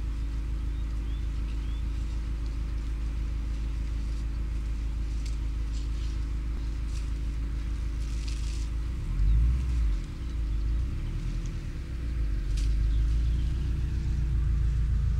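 A steady low mechanical hum, with heavier low rumbling swelling in from about nine seconds in. A few faint bird chirps in the first two seconds and a few light clicks.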